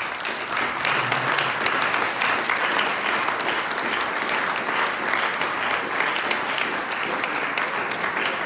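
A small audience of seated guests applauding steadily: many hands clapping.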